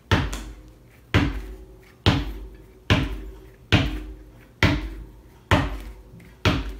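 Inflated tubeless mountain-bike tire and wheel bounced repeatedly on the floor: eight hollow thuds a bit under a second apart, each ringing briefly. This is a check that the freshly sealed, reseated tire holds its air.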